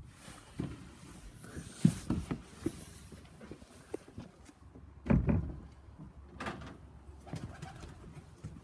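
Scattered knocks and thumps of a wooden pigeon-loft door and fittings being handled, the heaviest thump about five seconds in, with pigeons stirring.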